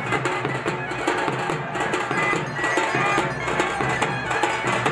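Traditional festival music with fast, busy drumming and percussion and a held melody line over it.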